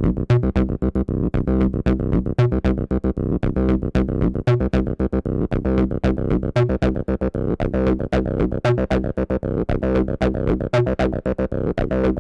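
Behringer TD-3 analog bass synthesizer playing a fast, repeating sequenced acid bass line of rapid, evenly spaced notes.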